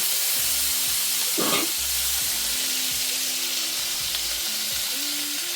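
Butter, garlic and lemon juice sizzling in a hot frying pan, a steady frying hiss.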